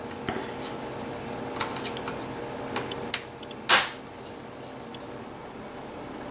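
Plastic screen bezel of an HP ProBook 4440s being pried off the laptop lid: a run of small clicks as the clip tabs let go, then a sharp click about three seconds in and a louder short crack just after.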